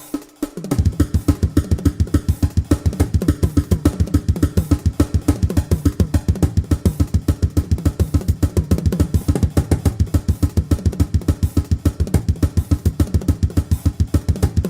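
Music with a fast, steady drum beat that kicks in under a second in, after a brief break.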